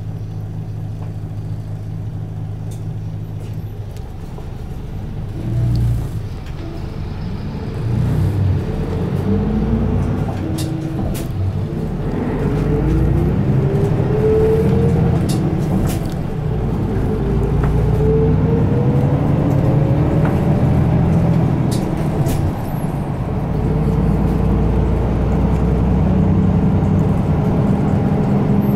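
Isuzu Erga Mio city bus's four-cylinder diesel, heard from inside the cabin: idling while stopped, a brief burst of air from the brakes about six seconds in, then pulling away with the engine rising in pitch, dropping back at a gear change twice, and settling into steady running near the end.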